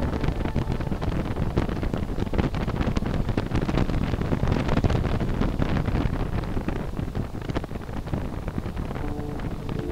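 Wind buffeting the microphone of a camera on a moving motorcycle, a loud steady rush with crackling gusts and the bike's running noise underneath.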